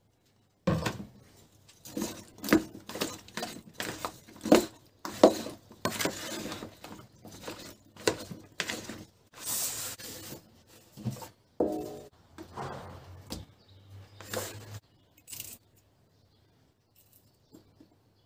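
Kitchen clatter: a run of knocks and clinks from dishes, a bottle and utensils being handled and set down on the worktop, mixed with short rustling and scraping.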